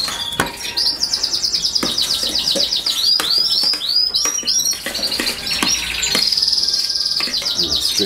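Domestic canaries singing: fast, high trills of rapidly repeated notes broken by sharp downward-sweeping chirps. A few light knocks sound under the song.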